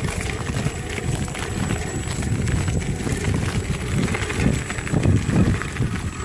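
Electric mountainboard rolling over a rough forest track: a continuous uneven low rumble with irregular knocks and clicks from the wheels on the bumpy ground.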